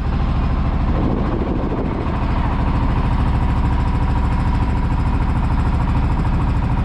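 Boat engine running steadily, with a fast, even low pulsing.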